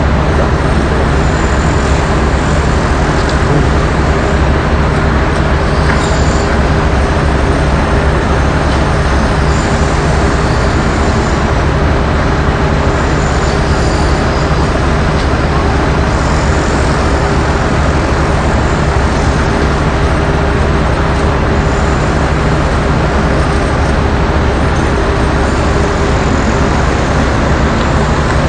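Heavy diesel engine of a mobile crane running steadily: a loud, even low drone that holds throughout.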